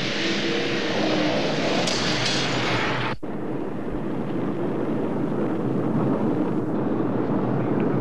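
Roar of ICBMs lifting off: a loud, continuous rushing rumble. It breaks off sharply about three seconds in and carries on deeper and less hissy.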